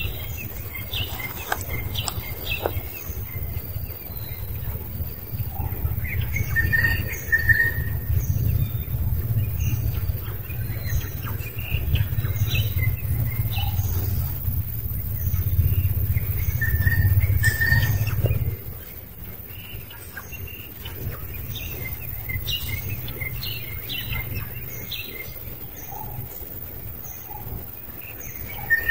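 Birds chirping with many short high calls, including a repeated two-note call. Underneath is a low rumble that drops away abruptly about two-thirds of the way through.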